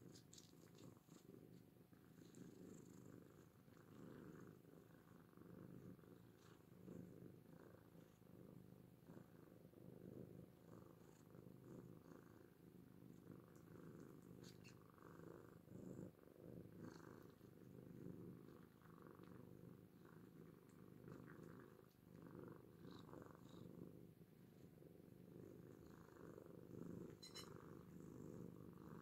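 Oriental cats purring quietly and steadily while curled up together.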